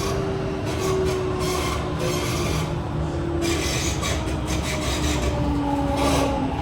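Kawasaki-CRRC CT251 metro train cabin interior noise as the train slows: a few low tones from the traction motors falling slowly in pitch, over a continuous rasping, rubbing noise from the wheels on the rails.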